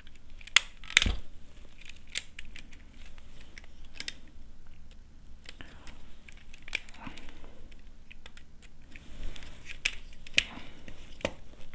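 Scattered clicks and taps of a plastic switch board being handled and wired, a small screwdriver working its terminal screws, with two sharp knocks about a second in.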